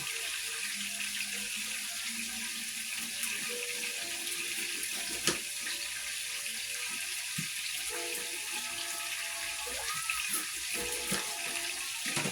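Ribeye steak sizzling steadily in a frying pan on the stove.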